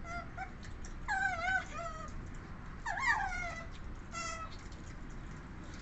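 Asian small-clawed otters calling: a few short high chirps, then longer wavering squeals about one and three seconds in, and a last short chirp just past four seconds.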